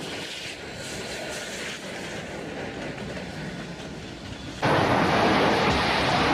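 Freight train rolling past with a steady, noisy rumble. About four and a half seconds in, it cuts off suddenly and gives way to a much louder, rough rushing noise.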